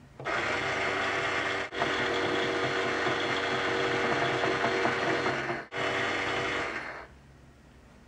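Just Like Home talking toy microwave oven running its cooking cycle after start is pressed: a steady hum and hiss with two very brief breaks, stopping about seven seconds in.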